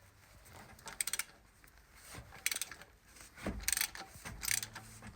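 Oil filter wrench clicking and ratcheting against the oil filter in several short bursts as it is turned to loosen the filter.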